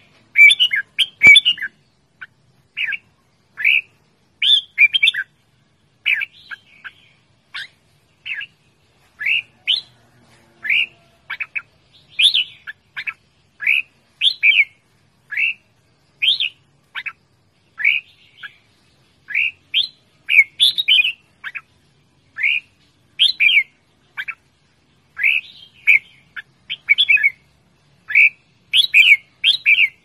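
Red-whiskered bulbul calling: a continuous run of short, loud chirping notes, about one or two a second.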